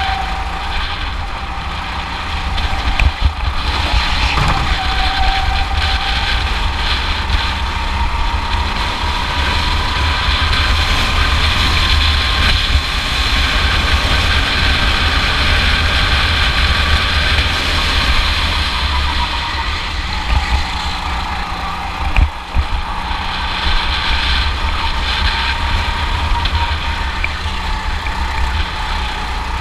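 Go-kart engine running under throttle, heard from the driver's seat, its pitch climbing slowly, dropping back, then climbing again.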